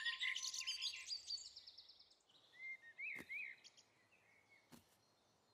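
A twinkly electronic chime flourish fading out over the first two seconds, then a few soft chirping bird tweets and two faint ticks about a second and a half apart.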